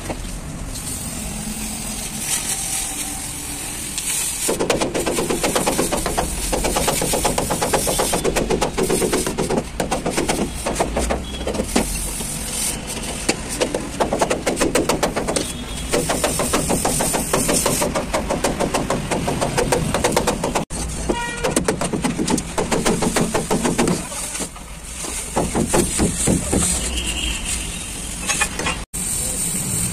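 Oxy-fuel gas cutting torch burning through rusted steel truck-body panels: a steady hiss from the gas jet with rapid crackling and spitting as the metal is cut.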